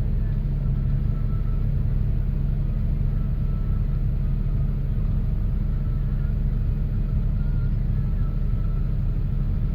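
A vehicle engine running steadily at idle, an even low rumble.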